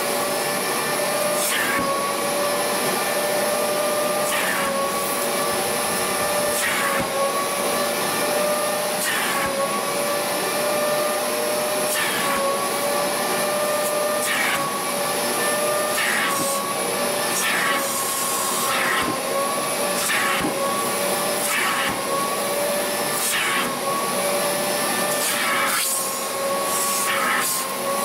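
Wet-extraction upholstery vacuum running steadily with a high whine, its nozzle drawn across a fabric car seat to suck up water together with the loosened dirt. The suction hiss flares briefly with each stroke, every second or two.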